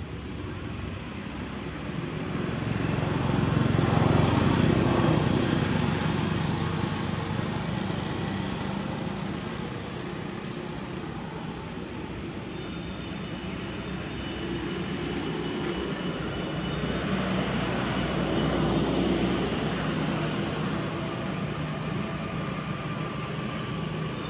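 Low, steady outdoor rumble that swells twice, about four seconds in and again near twenty seconds, with faint high steady tones in the second half.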